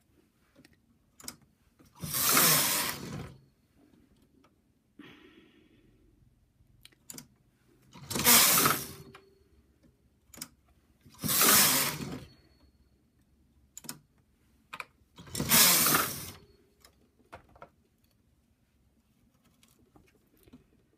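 Brother knitting machine's carriage pushed across the needle bed four times, each pass a rattling sweep of about a second. Between the passes come small clicks as needles are moved by hand.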